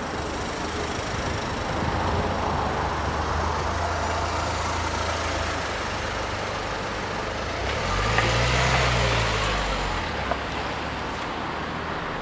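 Cars driving slowly across the level crossing and past the microphone as traffic resumes after the barriers lift, engines running at low speed. One vehicle passes loudest about eight to ten seconds in.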